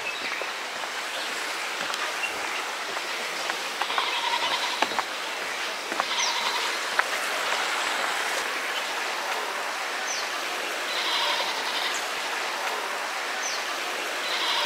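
Steady rush of river water flowing below, with short bird calls and chirps coming and going over it.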